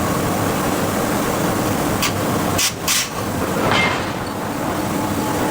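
Steady heavy machinery noise of a forge shop running hydraulic forging hammers, with three sharp metallic knocks about two to three seconds in and a fainter one shortly after.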